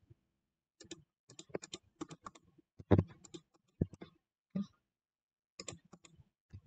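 Computer keyboard keys and mouse buttons clicking in irregular clusters of short taps, with a pause in the middle.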